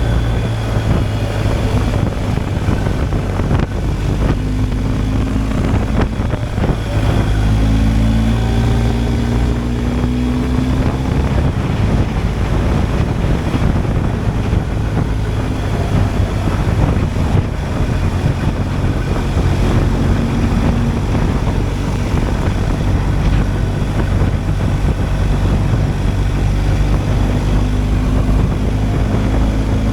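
BMW R 1250 GSA's boxer twin engine running steadily while riding, with wind rushing over the microphone. The engine pitch rises and falls slightly around 6 to 11 seconds in.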